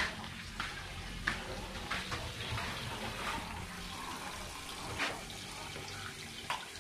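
Water running from a tap into a basin at a kitchen sink as hands wash something in it, with a few light knocks and clinks of bowls against the sink.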